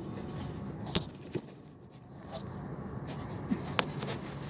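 Faint handling noise from a hand-held camera being worked into a tight space under a vehicle: three sharp clicks and light knocks over a low, steady background.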